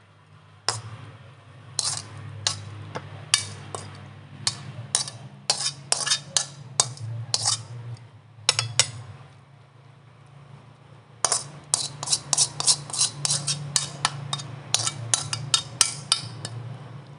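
Metal spatula scraping and clinking in a wok as a stir-fry of snails and water spinach is scooped out onto a glass plate. The quick sharp clinks come in two runs, with a pause of about two seconds in the middle.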